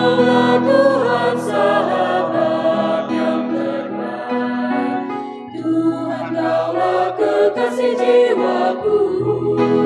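Mixed choir of men and women singing a slow hymn in harmony, over sustained keyboard chords.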